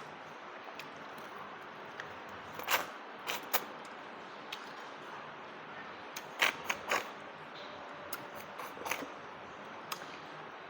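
Close-up eating mouth sounds of a person chewing: short wet smacks and clicks in irregular clusters over a steady faint hiss.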